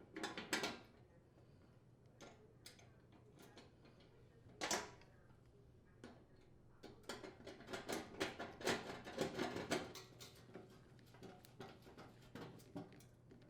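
Light metallic clicks and taps from a screwdriver and metal burner parts as gas range burner heads are aligned and their screws driven in, with a quick run of clicks between about seven and ten seconds in.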